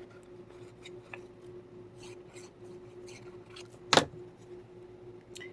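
Quiet handling of paper and craft supplies on a work table while a piece is glued down, with faint small clicks and one sharp tap about four seconds in. A faint steady hum runs underneath.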